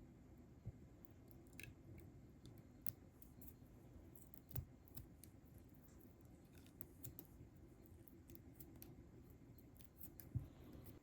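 Dried liquid latex being peeled away: faint sticky crackles and small scattered snaps, with a few sharper clicks, the loudest near the end.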